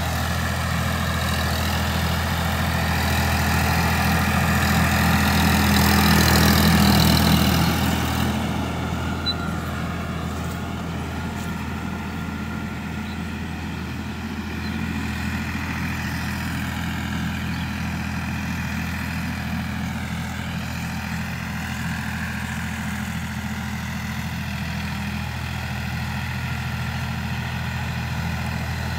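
Sonalika DI-50 RX tractor's diesel engine running steadily under load while it pulls a rotavator through the soil. It grows louder to a peak about six or seven seconds in, then drops and levels off as the tractor moves away.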